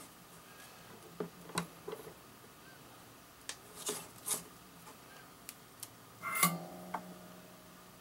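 Scattered small clicks and knocks of hands handling a bullet connector and soldering tools on a workbench, with a louder metallic clatter and a short ring about six and a half seconds in.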